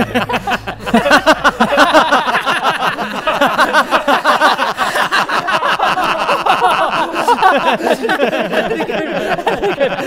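Several men laughing loudly together, their laughs overlapping in quick, pulsing bursts.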